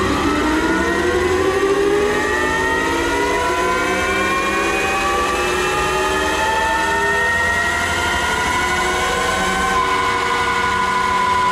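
Denzel Samurai electric motorcycle making a full-throttle baseline pull on a Dynojet 250 dyno. The electric motor and drivetrain give a loud whine that climbs steadily in pitch, then levels off and holds steady near the end.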